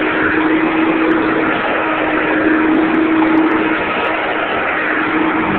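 Hoover Dial-a-Matic upright vacuum cleaner running steadily on maximum carpet suction: a constant motor hum under an even rush of air.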